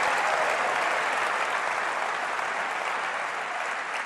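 Large audience applauding, a dense even clapping that slowly eases off.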